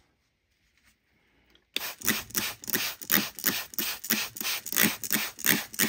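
Plastic trigger spray bottle squirting water onto a rock in quick repeated pumps, about four spritzes a second, starting about two seconds in after near silence.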